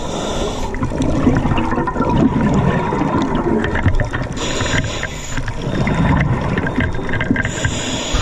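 Scuba regulator heard underwater: exhaust bubbles gurgling and rumbling, with three hissing breaths, one near the start, one about four and a half seconds in and one near the end.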